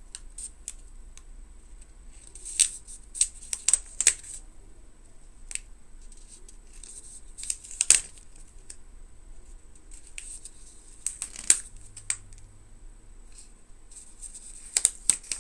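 A paper strip backed with double-sided tape being wrapped and pressed around a round box lid by hand: scattered crackles and sharp taps of paper, coming in a few short clusters.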